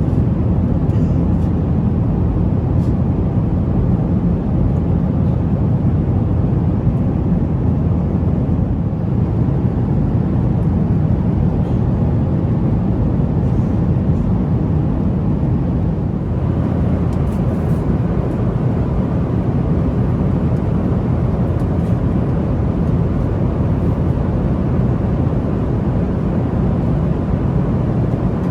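Steady in-flight cabin noise of a Boeing 737-900ER: a low drone of engines and rushing air, slightly brighter from about halfway through.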